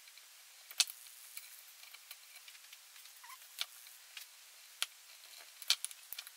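Scattered small clicks and taps of a plastic split charge relay housing and its cables being handled, over a faint hiss.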